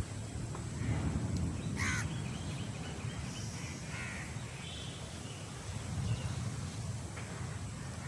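Crows cawing twice, about two and four seconds in, over a steady low rumble.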